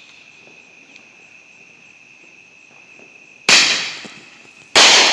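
A Roman candle firing two shots, about three and a half seconds in and again just over a second later, each a sudden blast that trails off over about a second. Crickets chirp steadily in the background.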